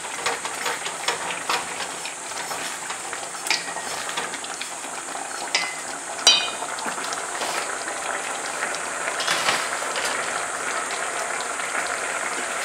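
Risotto simmering in a pan with broth just added, sizzling and bubbling steadily while a spoon stirs and clicks against the pan. One brief ringing clink about six seconds in.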